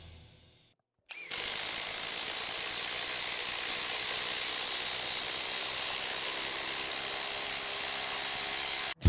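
Bosch IDH182 18-volt brushless impact driver hammering steadily for about eight seconds as it drives a 5/16 by 6 inch screw into stacked lumber, starting about a second in and cutting off suddenly near the end. Background music fades out just before it starts.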